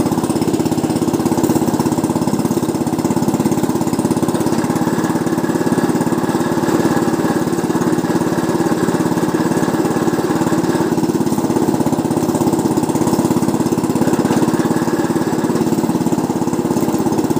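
Small engine running steadily, belt-driving a sugarcane juice mill while cane stalks are pressed through its rollers.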